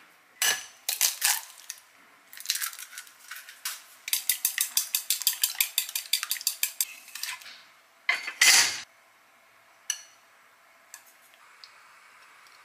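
A kitchen knife cutting down onto a wooden cutting board a few times, then chopsticks beating eggs in a glass bowl: a fast, even run of clinks against the glass, about seven a second. Near the end comes a louder clatter of kitchenware being set down, then a single click.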